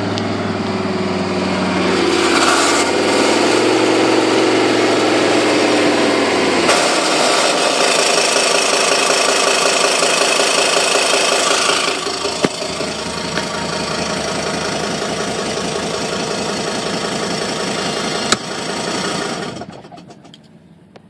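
1984 Mercedes-Benz 300SD's five-cylinder turbodiesel with a loud rhythmic tick and rattle from underneath at idle. The engine is revved up and back down in the first few seconds, then a dense rasping rattle runs at idle until the sound drops away near the end. The noise is heard at idle and goes away around 2,500 rpm, and the uploader suspects a cracked flex plate.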